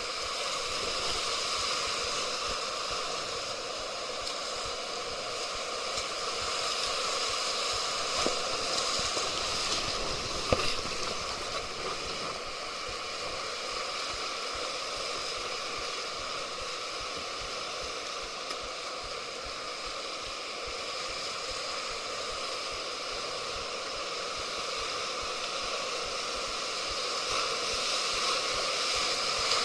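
Steady rush of river rapids. A brief knock about ten and a half seconds in.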